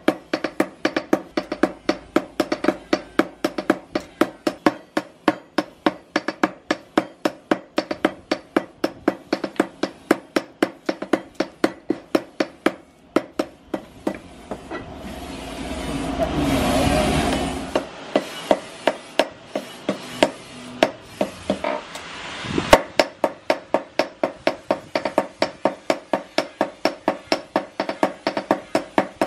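Red-hot bearing steel being hand-forged into a knife blade on a steel post anvil, with a smith's hammer and a striker's sledge alternating at about three blows a second, each blow ringing. The blows pause about halfway through while a rushing noise swells and fades, then resume with one especially loud strike.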